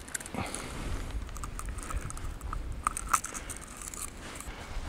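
Handling noise as a freshly caught pike is measured: rustling and scattered small clicks and knocks, the sharpest about three seconds in, over a low rumble.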